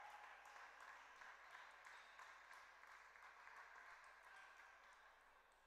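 Faint clicks of a celluloid table tennis ball during a rally, bouncing on the table and struck by rackets, one every half second or so, over a steady hall hum.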